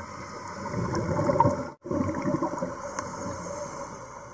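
Scuba diver's exhaled bubbles gurgling from the regulator, heard underwater as a steady noisy bubbling. The sound cuts out briefly about two seconds in.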